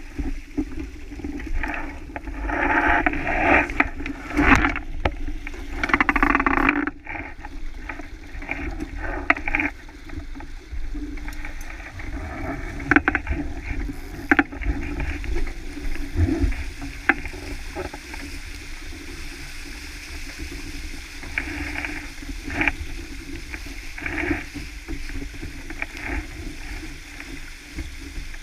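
Water rushing and splashing along a sailboat's hull at speed, with wind buffeting the microphone as a deep rumble. The rushing is loudest and most uneven in the first several seconds, then settles to a steadier wash.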